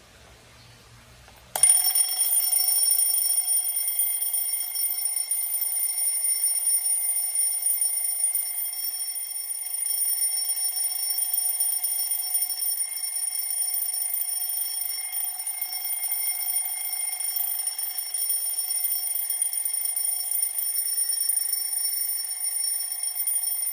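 IKEA DEKAD twin-bell alarm clock ringing: its hammer rattles continuously against the two metal bells in a loud, steady, high ring. It starts suddenly about a second and a half in.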